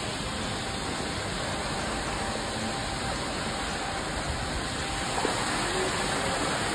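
Fountain water splashing into a shallow pool: a steady rushing hiss.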